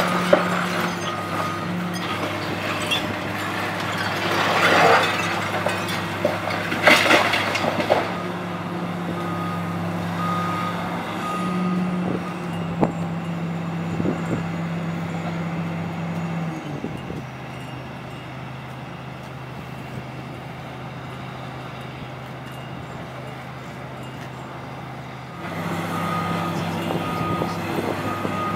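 Diesel engine of a high-reach demolition excavator running steadily, with crashes of brick and debris falling a few seconds in. Past the middle the engine sound drops lower and quieter, then returns near the end.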